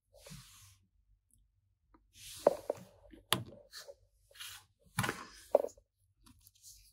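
Plastic action figures handled on a wooden tabletop: soft rustling with several sharp separate plastic clicks and knocks.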